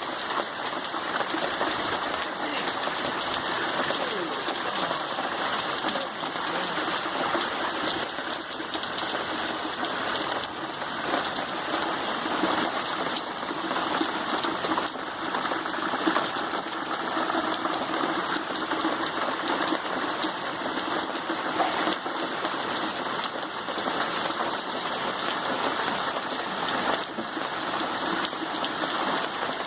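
Heavy tropical-storm rain falling steadily, a loud, even rush of water.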